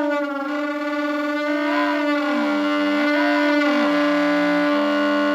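Saxophone growl: one steady saxophone note while the player sings through the horn, his voice gliding up and down beneath the note in several arches. The voice and the sax blend into the rattle (дребезжание) that makes the growl effect.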